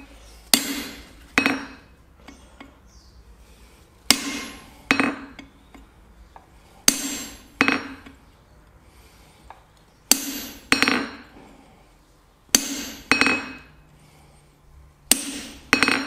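Ball-peen hammer striking a squared-off chisel held on hot steel on the anvil, cutting growth lines into forged horns. Six pairs of sharp metallic blows come about three seconds apart, each blow ringing briefly.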